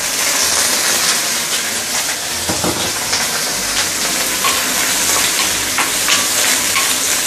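Prawn shells sizzling hard in hot oil in a stainless steel wok, a steady loud hiss with a few small pops and spatters. Near the end a wooden spatula stirs and scrapes them.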